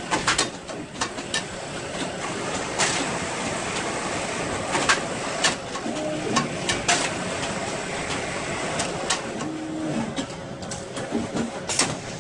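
Steady hum of an automatic placket-setting sewing machine and surrounding garment-workshop machinery, with scattered sharp clicks and clacks as the machine and its work table are loaded with shirt fronts.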